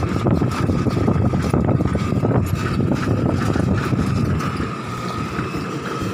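Tracked Hitachi excavator running, with a rough low rumble and a steady high whine.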